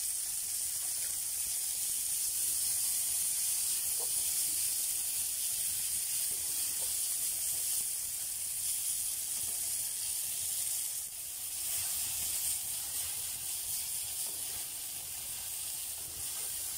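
Red currants sizzling in a frying pan over a wood fire: a steady high hiss.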